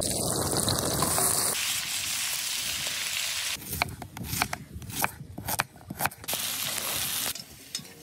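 Meat sizzling loudly as it fries in a hot pan over a campfire. Partway through comes a quick series of sharp knife chops through an onion on a wooden cutting board, then the sizzling returns for about a second.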